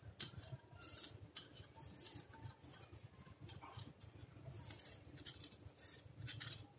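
Fabric scissors snipping through folded cloth, a string of faint, crisp snips at irregular intervals, as the uneven edge of a petticoat panel is trimmed straight.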